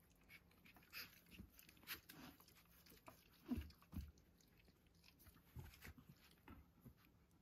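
Faint, scattered sounds of Saarloos wolfdog puppies play-fighting: soft little puppy noises and mouthing, nibbling sounds as they bite at each other, with the loudest pair of bumps about three and a half and four seconds in.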